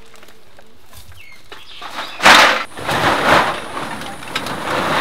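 Loud crinkling rustle of plastic recyclables being tipped and pushed into a large woven bulk bag, starting about two seconds in and coming in several swells.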